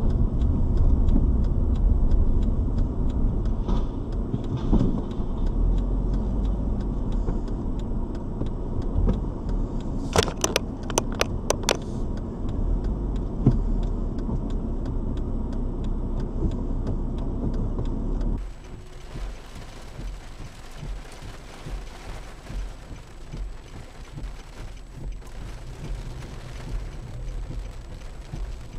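Road and engine rumble inside a moving car, picked up by a dashcam, with a quick run of about six sharp clicks around ten seconds in. After a sudden drop in level at about eighteen seconds, a quieter even hiss of rain on the car takes over.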